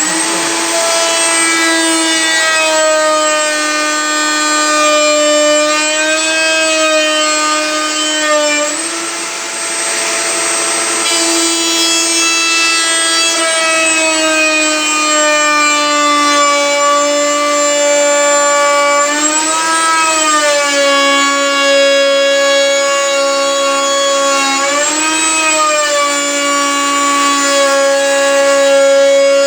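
Electric power tool cutting Corian, running continuously with a high motor whine. Its pitch sags briefly several times as the cut loads it, then recovers.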